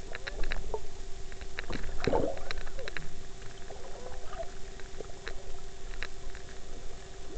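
Underwater sound from a sports action camera in its waterproof case: scattered clicks and bubbling over a steady low tone, with a louder gush of bubbles and water movement about two seconds in.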